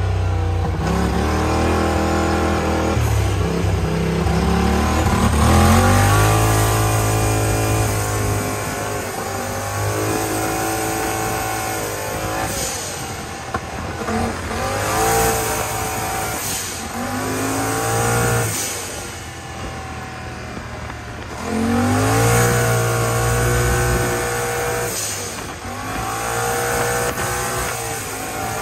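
Turbocharged Yamaha Wolverine RMAX 1000 side-by-side's parallel-twin engine under hard acceleration, heard from the driver's seat. The pitch climbs again and again as it pulls through the revs, eases off for a moment about two-thirds of the way through, then comes back on.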